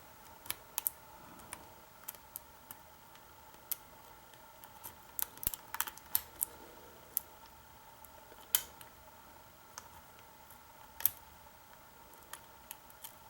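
Small, irregular clicks and taps of a metal hook pick working the pins inside a Master Lock 6230 padlock's cylinder during single pin picking, with a short cluster of clicks about five to six seconds in.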